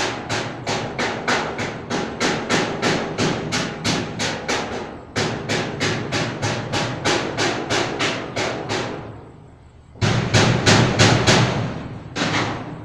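Rapid, even knocking, about three sharp strikes a second, that stops about nine seconds in; a louder, heavier run of knocks follows about a second later, with one last knock near the end.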